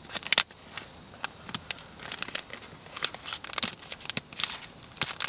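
Foil pouch of a self-heating ration pack crinkling and crackling in the hands as fingers pick at it to get it open, a run of irregular sharp crackles.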